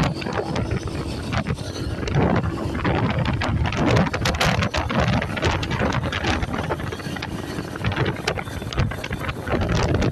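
Wind buffeting the microphone on a moving bike, over road and traffic noise; the rush rises and falls unevenly.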